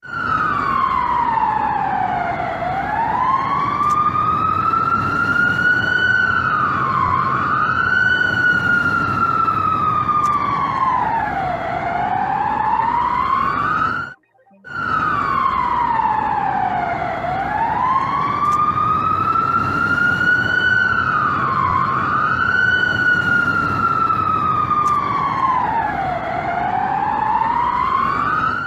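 Emergency alert siren wailing: one tone sweeps slowly down and back up between a low and a high pitch every few seconds, with a short dip while held at the top, over a steady rushing noise. About halfway through it cuts out for a moment, then the same sequence plays again.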